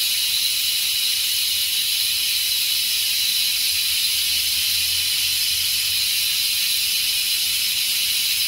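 Steady, loud high-pitched hiss with a faint low hum underneath, unchanging throughout.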